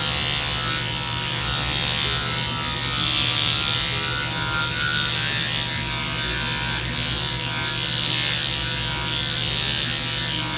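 Steady buzz of a MicroAire power-assisted liposuction handpiece, its cannula vibrating rapidly back and forth while fat is gently suctioned out.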